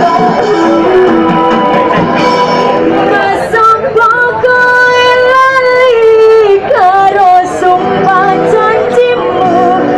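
Loud music played through a sound system, with a female voice singing long, wavering held notes.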